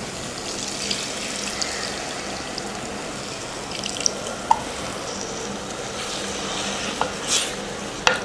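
Tamarind water poured and splashing into a clay pot of garlic fried in spiced oil, with a few sharp knocks near the end.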